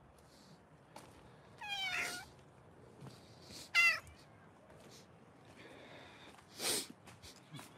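Cats meowing: one meow about two seconds in and a louder, falling meow about four seconds in, with fainter calls after. Near the end comes a short noisy burst.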